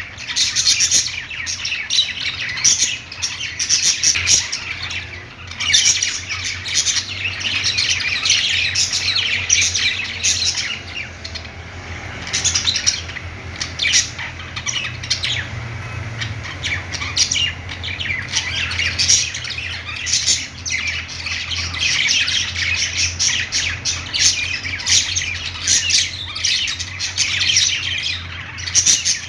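A group of budgerigars chattering nonstop, with rapid overlapping chirps, warbles and squawks. A faint steady low hum sits underneath.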